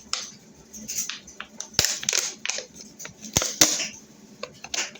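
Handling noises: irregular clicks, crinkles and knocks from things being moved about, with two louder knocks just under two seconds in and about three and a half seconds in.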